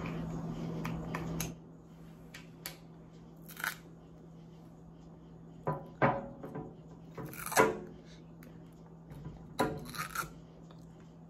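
Containers and utensils being handled: scattered clinks, taps and clatters, about a dozen short sharp knocks spread over several seconds, with a faint steady hum underneath.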